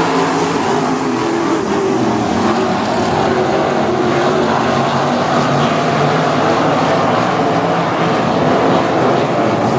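A pack of 305 winged sprint cars racing at full throttle, several V8 engines running loud together and overlapping without a break.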